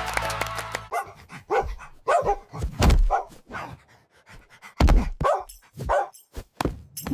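Background music stops about a second in, then a run of about a dozen short animal calls, unevenly spaced, some with a low thud.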